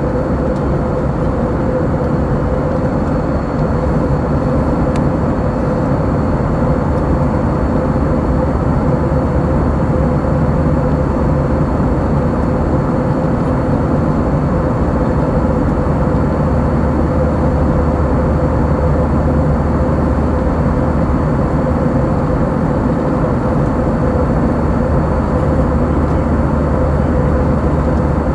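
Steady jet engine and airflow noise inside the cabin of an Airbus A321-200 airliner, a loud even rush with a constant hum running through it.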